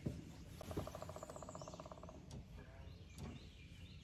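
Faint rapid trill of an animal call, about a second and a half long, starting about half a second in, followed by a few soft clicks.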